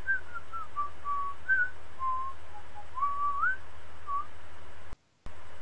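A person whistling an aimless tune over a video-call line: single short notes and slides up and down, over a steady low hum. The audio drops out for a moment near the end.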